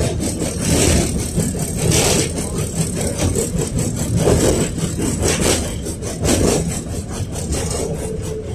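A KTM-5 (71-605A) tram under way, heard from inside the car: a steady low rumble of the running gear on the track, with the body and fittings rattling and clicking throughout.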